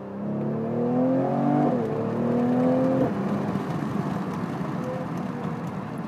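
Mercedes-AMG E43's twin-turbo 3.0-litre V6 accelerating, heard from the cabin with a window down: the engine note climbs, drops at an upshift a little under two seconds in, climbs again and stops about three seconds in when the throttle is lifted, leaving road and wind noise. The exhaust note comes through only faintly.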